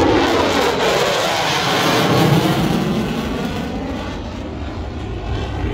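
F-35 Lightning II's single F135 afterburning turbofan engine, a loud jet noise as the fighter passes, fading noticeably in the second half.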